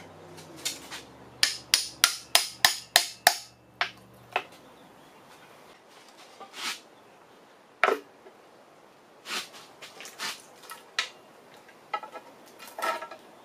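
Hand ratchet clicking in a quick run of about eight strokes as bolts are worked on the front of the engine block, followed by scattered metallic clicks and knocks. A low steady hum stops about four seconds in.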